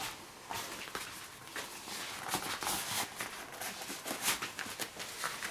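Green rubber work gloves being pulled onto the hands: rubbery rustling and rubbing with scattered small snaps and clicks.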